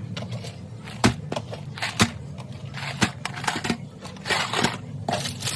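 Pantry items and plastic storage bins being handled and sorted, with sharp knocks about once a second, then rustling and scraping of packages near the end, over a low steady hum.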